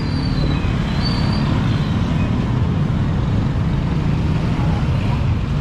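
Street traffic noise: motorcycle and tricycle engines running close by, a steady low rumble with the hum of a crowd behind it.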